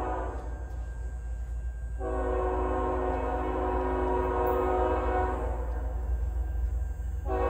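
Approaching train's multi-chime air horn sounding in blasts: one fading out about a second in, a long blast from about two seconds in, and another starting near the end. A steady low rumble of the train runs underneath.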